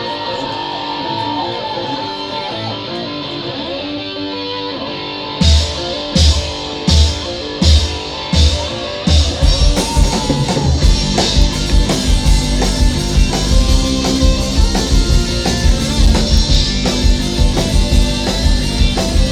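Instrumental intro of a rock song. Guitar plays alone for about five seconds. Then drum-kit hits with cymbals come in on a regular accent about every 0.7 s, and about nine seconds in the full band settles into a steady fast beat.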